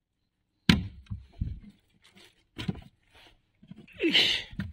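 Live groupers flapping and being handled on a wooden board in a small boat: a few separate thumps and wet slaps, then a louder sound with a falling pitch near the end.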